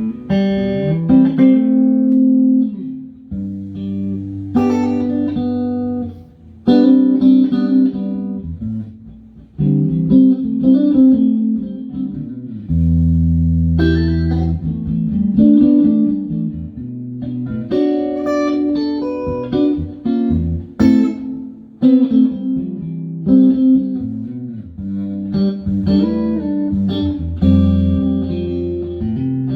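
Stratocaster-style electric guitar with Fatpups Crossroads pickups, played in a series of picked chords and single notes, each left to ring.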